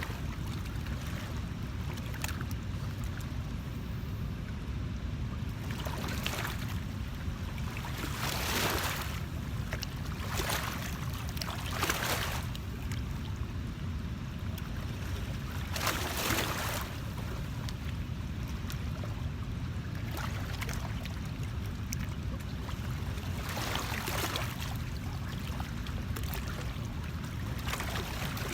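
Outdoor wind and water noise: a steady low rumble with several brief louder swishing surges.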